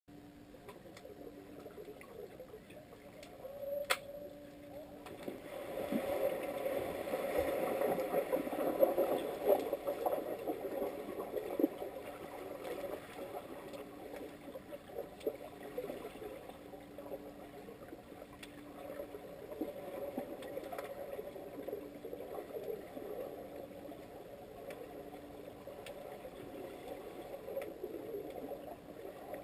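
Muffled water noise picked up by a camera under the water of a swimming pool: swimmers in fins churning and kicking, loudest from about 5 to 12 seconds in, with one sharp click about 4 seconds in. A faint low tone switches on and off throughout.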